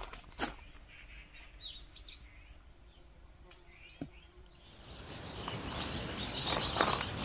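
Small birds chirping outdoors, a few short calls over quiet air, with a single click partway through. A little past halfway a louder, steady outdoor hiss comes in under more bird calls.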